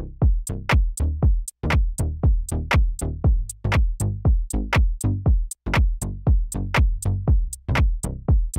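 Electronic music with a fast drum-machine beat, about four beats a second.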